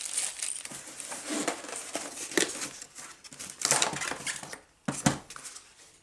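Packaging being handled: crinkling and rustling, broken by several light knocks and clatters of parts, the sharpest about five seconds in.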